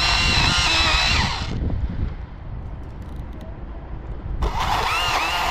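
Husqvarna T535i XP battery top-handle chainsaw cutting through a limb in two bursts. It gives a high electric whine that dips and rises as the chain bites. It stops about a second and a half in and starts again about three seconds later.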